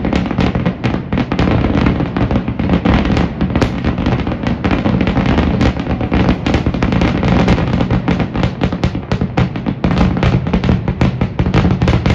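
Aerial fireworks shells bursting in a rapid, continuous barrage of overlapping booms and crackles: a finale barrage.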